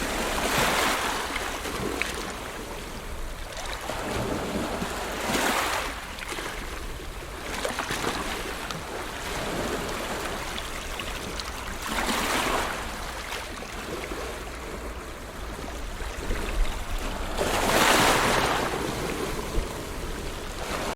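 Ocean surf: four waves break and wash up several seconds apart, the last one the loudest, over a steady low rumble of wind on the microphone.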